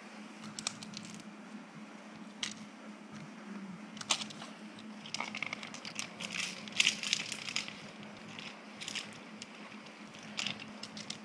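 Dogs' paws shifting on pebble gravel and stone pavers, with scattered crunches and clicks that come thickest around the middle, while a dog bites and tugs a rope spring-pole toy. A faint steady hum runs underneath.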